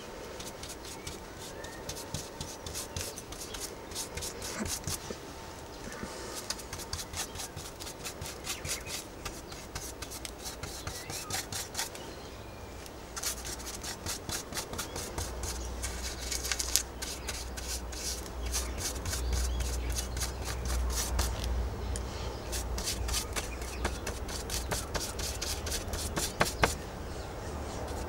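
Quick, repeated rubbing strokes across paper and card, many a second, with a couple of short pauses. A low rumble comes in about halfway through.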